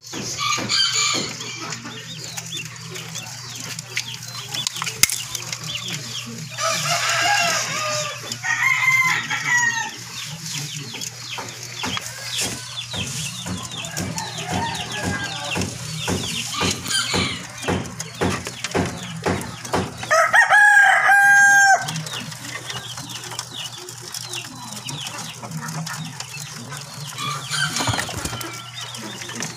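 Caged quails chirping and calling, with one loud crowing call about twenty seconds in, over a steady low hum.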